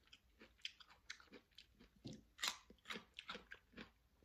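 Chewing raw cucumber spears: a run of quiet, irregular wet crunches, a few louder around the middle.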